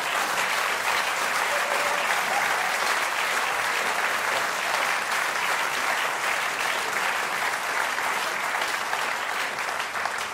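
Audience applause: a dense, steady patter of many hands clapping that starts to die away near the end.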